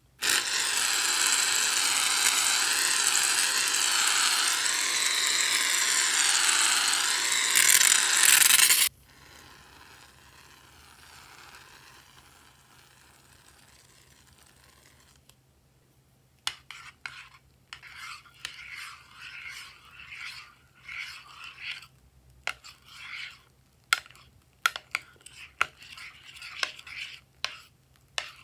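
Aerosol foam can spraying with a loud, steady hiss for about nine seconds, louder and sputtering just before it cuts off, then a much fainter hiss. From about halfway, a spatula stirs the foam in a glass dish in irregular scraping strokes with sharp clicks.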